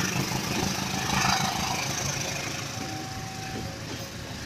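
Passenger train coaches rolling past on the rails at a level crossing: a steady rumble of wheels on track that grows fainter as the train draws away.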